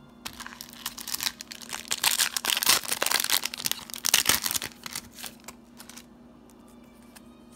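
Foil booster-pack wrapper crinkling as it is handled, loudest for a couple of seconds in the middle, then dying away to a few light ticks.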